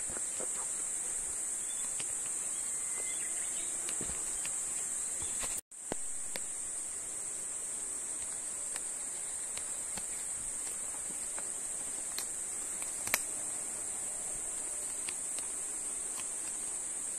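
Insects droning in woodland: a steady high-pitched buzz that runs on unbroken, with scattered faint clicks. The sound drops out for an instant a little over five seconds in, then resumes.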